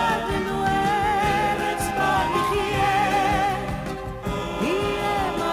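Background music: a slow melody of long held notes with vibrato over a steady accompaniment.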